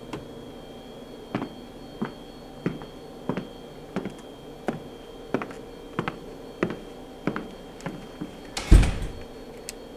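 Hard-heeled footsteps walking away at an even pace, about a dozen sharp clicks on a hard floor, followed near the end by a single heavy thump.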